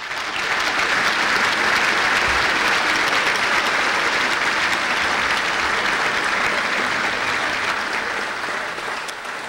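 Audience applauding after a lecture: sustained clapping that builds in the first half second, holds steady and slowly thins toward the end.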